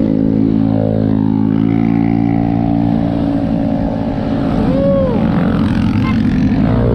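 A motor vehicle's engine running steadily at an even pitch. About five seconds in, a brief tone rises and falls.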